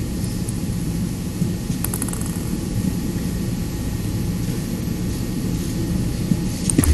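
Steady low rumble of a table tennis arena's background noise. A few faint ticks come about two seconds in, and sharp clicks near the end as a celluloid-type table tennis ball is struck on the serve and bounces on the table.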